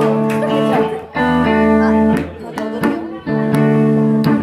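Live rock band's electric guitars and bass guitar playing held chords, each ringing for about a second, with short breaks between them.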